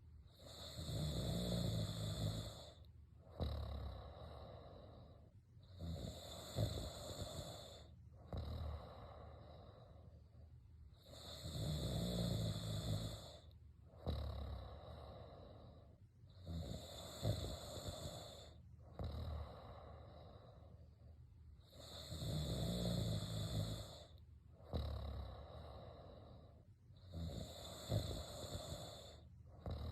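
A person snoring in a steady rhythm: a loud rattling snore about every five seconds, six in all, each followed by a softer, quieter breath.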